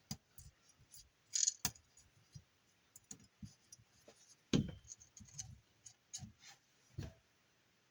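Handling a slot car and its trimmed clear plastic body: scattered light clicks and taps, with a louder knock about four and a half seconds in.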